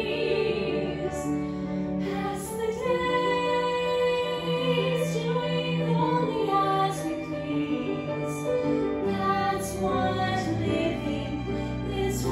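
Two women singing a slow, sustained duet over instrumental accompaniment.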